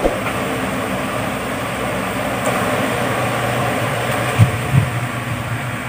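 Steady background hum and hiss, with two short, soft low thumps near the end.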